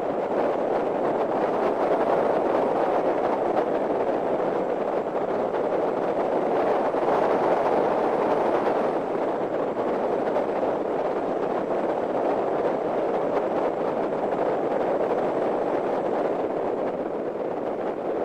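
Hyundai Genesis Coupe on the move: a steady rush of wind and road noise, a little louder around the middle.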